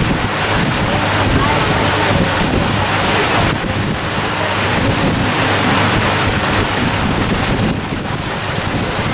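Wind buffeting the microphone in uneven gusts, with a faint steady low hum underneath.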